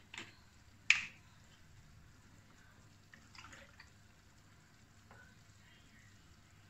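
A sharp click about a second in, then milk poured faintly from a plastic jug into a measuring cup.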